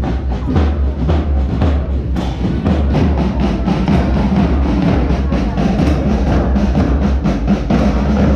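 Marching band drums, bass drums and side drums, beating a steady marching rhythm of about three strokes a second.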